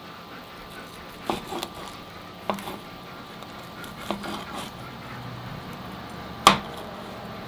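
Four sharp knocks and clinks of a knife against a cutting board while smoked sausages are sliced, the loudest near the end.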